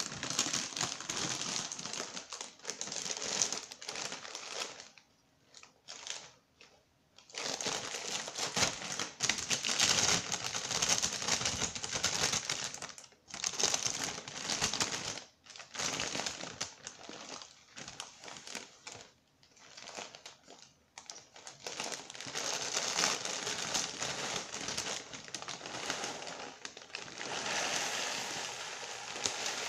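Clear plastic cereal bag crinkling as it is handled, in stretches broken by short pauses.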